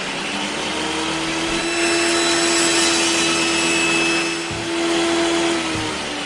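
Sound-effect whirr of a spinning circular saw machine: a steady, noisy mechanical whirr with a held hum that stops shortly before the end.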